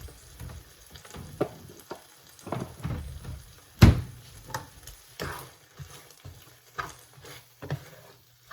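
A utensil scraping and knocking in a pan as mackerel with pepper and vegetables is stirred, in irregular strokes, with one sharp clank about four seconds in.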